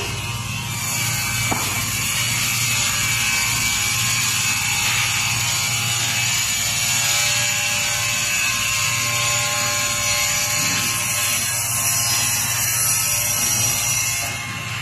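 Multi-blade log saw running and cutting, a steady dense high-pitched sawing noise over a low machine hum that starts just under a second in and stops near the end.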